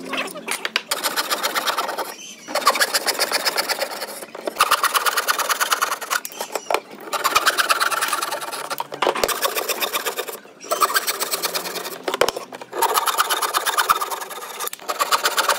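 Electric jigsaw cutting through a pine board, its blade running with a fast, even rattle in spurts of one to two seconds broken by short pauses.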